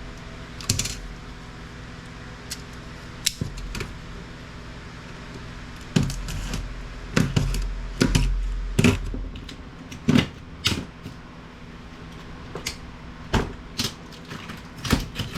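Irregular clicks and clatters of small metal and plastic parts being handled while an LCD monitor is taken apart, busiest about halfway through, over a low steady hum.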